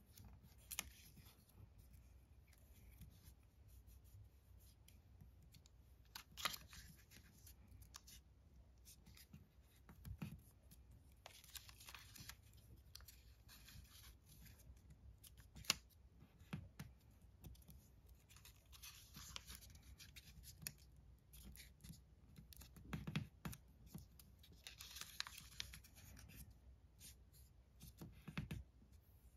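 Origami paper being folded and creased by hand: faint rustling and crinkling, with scattered sharp ticks and taps as the sheet is pressed against the table.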